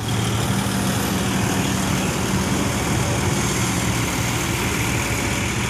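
Heavy diesel engines running steadily with an even low hum: a Kobelco SK200-8 excavator loading soil beside a six-wheel dump truck.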